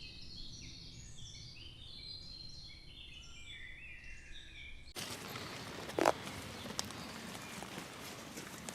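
Birds singing, a busy run of short high chirps and whistles, for about five seconds; then an abrupt cut to rougher outdoor background noise with a single sharp knock about a second later and a faint tick after it.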